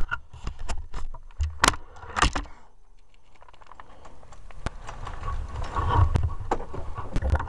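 Handling noise from a .22 air rifle being readied for another shot: scattered clicks and rustling, with two sharper clicks around two seconds in and a longer stretch of rustling near the end.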